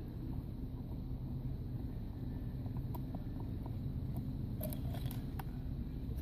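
Steady low machine hum, with a few light clicks around the middle and a quick cluster of clicks and taps about five seconds in.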